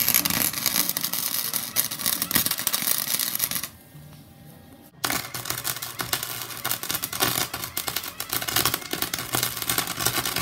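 Welding arc crackling and spitting as a bead is run on a go-kart's steel floor pan, in two runs with a break of about a second just before the middle.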